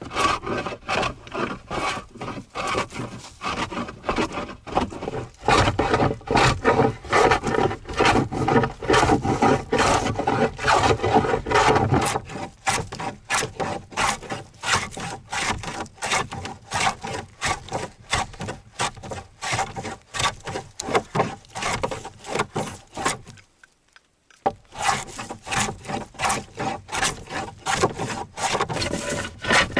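Hand tool working spruce board in quick, repeated rasping strokes, with a pause of about a second near the end.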